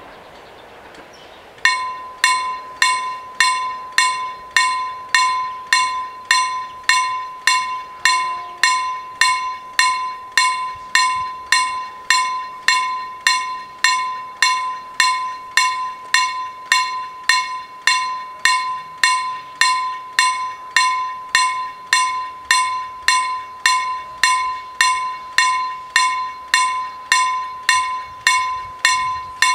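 Level crossing warning bell ringing. It starts about two seconds in and strikes steadily at roughly two times a second, each strike a bright ringing tone. The bell is the crossing's warning that a train is approaching.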